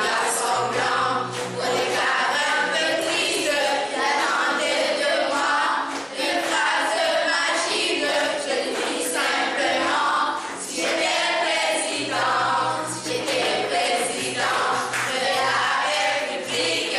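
A group of children's voices singing together in chorus, phrase after phrase.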